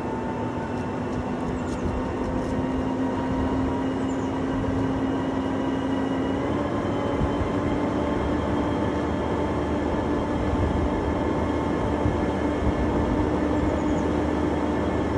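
A large machine running steadily with a droning hum, its pitch stepping up slightly about six and a half seconds in.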